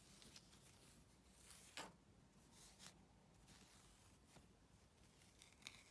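Near silence, with a few faint rustles and ticks as strands of crewel wool are split and pulled apart by hand.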